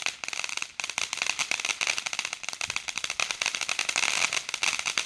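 A lit consumer firework crackling in a dense, rapid stream of sharp pops, with a brief pause under a second in.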